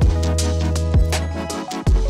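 Background electronic music with a heavy sustained bass and a drum beat.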